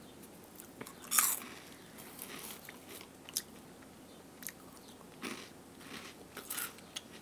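Someone biting into and chewing a light, crunchy chocolate-flavoured corn puff snack. There is a loud crunch about a second in, then scattered softer crunches as it is chewed.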